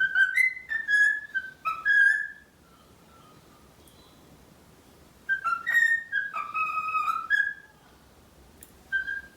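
Cockatiel whistling its song at its own reflection in a mirror: two bursts of short, clear whistled notes stepping up and down in pitch, separated by a pause of a few seconds.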